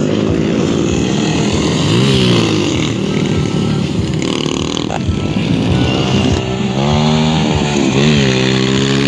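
Dirt bike engines running, with the pitch revving up and dropping back about two seconds in and again about eight seconds in.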